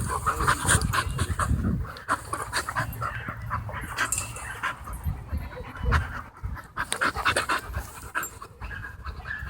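Dogs panting close by while they play, with many irregular sharp clicks and knocks throughout.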